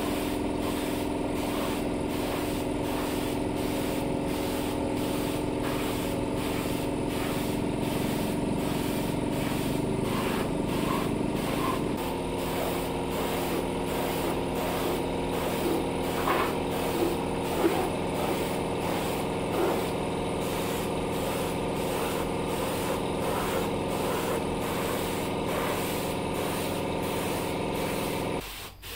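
Air compressor running steadily to feed a paint spray gun, with the hiss of the spraying under it; the compressor cuts off near the end.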